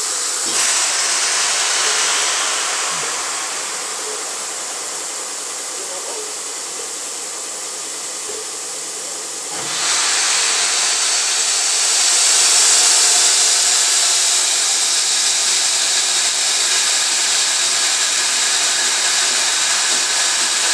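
Steam hissing steadily from the LNER A3 Pacific steam locomotive Flying Scotsman. About halfway through it suddenly grows louder and brighter and stays that way.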